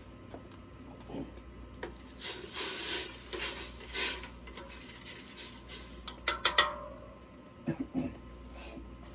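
A utensil stirring and scraping in a stainless steel stock pot, with a quick cluster of sharp metal clanks past the middle and a couple of knocks near the end.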